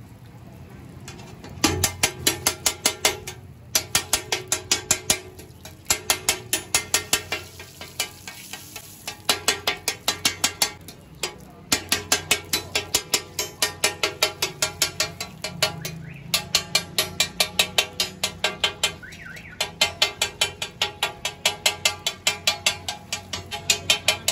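Metal spatula blade chopping food on a large flat iron tawa griddle, in runs of quick clanking strikes, about five or six a second, with short pauses between the runs. It is the chopping of an egg-and-tikki mixture on the hot plate.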